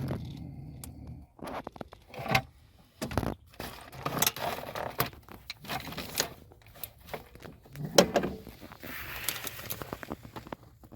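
Hands handling tools and small plastic and metal parts at a truck's accelerator pedal while the old throttle position sensor and its wiring clip are freed: scattered clicks, taps and rustling.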